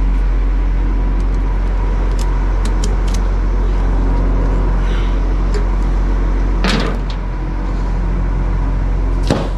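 Crane truck's engine running steadily with a deep hum, while the outriggers are being set down. There are two brief sharp noises in the second half.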